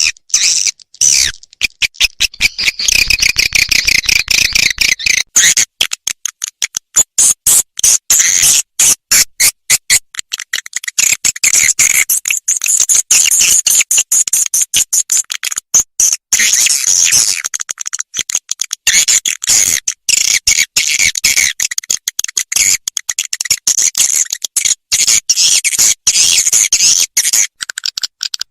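Recorded swiftlet calls: dense, rapid high chirps and twitters, chopped into quick stuttering bursts. It is a 'lintasan' lure track, played at a swiftlet house to draw passing swiftlets in.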